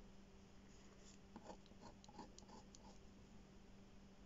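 Faint scratching of a fine drawing tip on paper as several short strokes are drawn, mostly in the first half.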